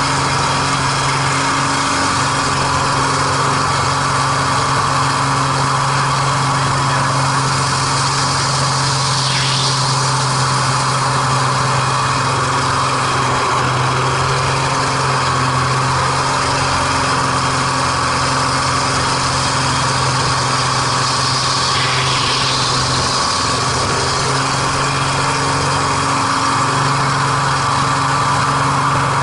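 MX2 aerobatic plane's piston engine and propeller heard from the cockpit, a loud, steady drone with rushing air noise over it.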